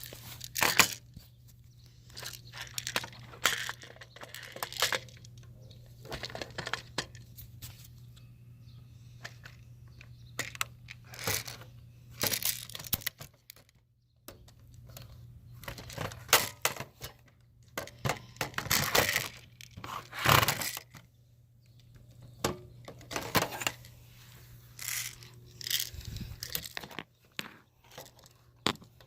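A BB gun being cocked and fired: irregular sharp clicks and cracks, some in short clusters, over a steady low hum.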